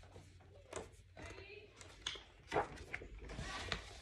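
Faint handling noises of a picture book being moved about: soft rustles and a few light taps and clicks, with a low room hum underneath.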